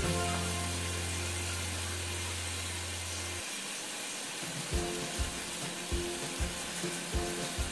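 Garlic cloves grated on a flat metal hand grater over a pot: short scraping strokes, coming in quick irregular succession from about the middle on, over soft background music.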